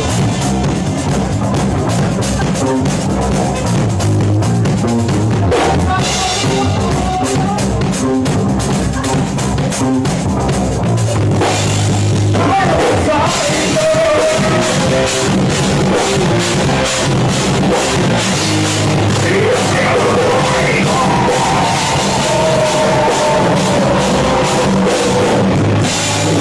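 Rock band playing live in a small rehearsal room: a drum kit beating steadily under electric guitar. About halfway through, a wavering lead melody comes in over the drums.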